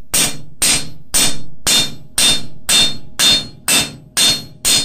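A hand hammer strikes a cold steel cross blank on an anvil in an even rhythm, about two blows a second, each blow ringing briefly. The steel is being worked cold to hammer textured bevels into the edges of the blank.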